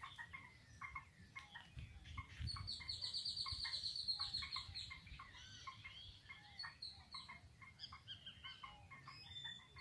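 Birds calling: short chirps repeated throughout, with a rapid high trill from about two and a half seconds in that lasts about two seconds.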